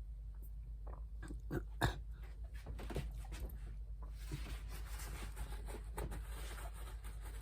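Small spray-gun parts being handled and fitted by hand: a quick run of light clicks and taps with one sharper knock, then a steady rustling scrape.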